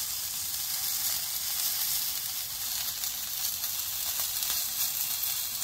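Food sizzling on the hot grill grate of a Ninja Foodi Smart XL Pro electric indoor grill: a steady frying hiss.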